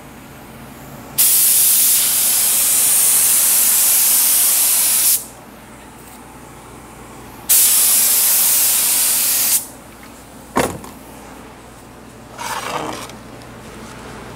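Air spray gun hissing in two long bursts, the first about four seconds and the second about two, spraying activator onto hydrographic film floating on the dip tank's water to liquefy the printed ink before dipping. A sharp click follows, then a brief softer sound near the end.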